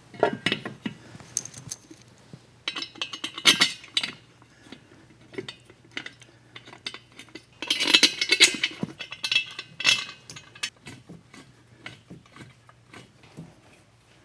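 Hand tools working on a motorcycle engine: runs of quick ratchet-wrench clicks and metal clinks, densest about three seconds and again about eight seconds in.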